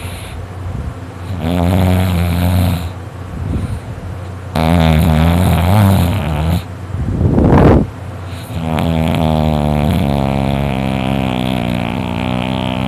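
A sleeping boy snoring very loudly: long buzzing snores, one to four seconds each. A short rising rush of breath about seven seconds in is the loudest sound.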